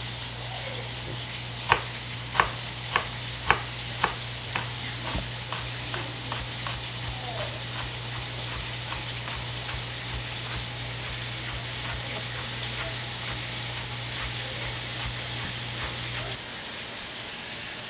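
Kitchen knife chopping green onions on a bamboo cutting board: five sharp knocks, then a long run of lighter, quicker chops that fade. A steady hiss and low hum lie under it, and the hum stops shortly before the end.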